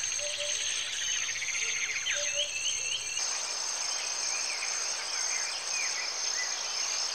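Wild outdoor ambience: a steady high trilling of insects with scattered short bird chirps over it. The background changes about three seconds in.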